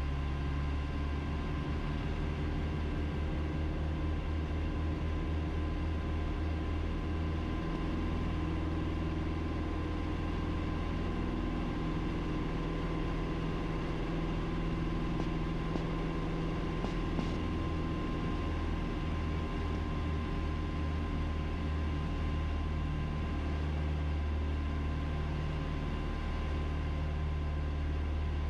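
Piper PA-30B Twin Comanche's two four-cylinder Lycoming engines and propellers droning steadily in the cockpit on final approach, with the gear down and propellers set for landing.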